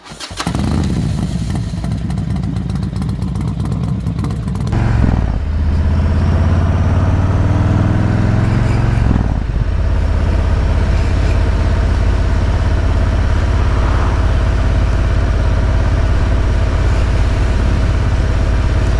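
2019 Harley-Davidson Road King V-twin through Vance & Hines true dual headers and 4.5-inch Titan mufflers, heard while riding. The exhaust note climbs for several seconds under acceleration, drops at a gear change about halfway, then holds steady at cruise.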